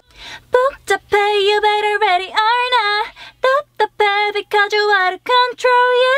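A young woman singing a K-pop vocal line alone into a studio microphone, with no backing track: short sung phrases broken by brief gaps, over a faint low hum.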